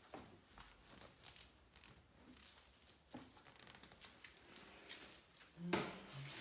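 Faint scattered rustling and light handling noises, with one louder knock near the end.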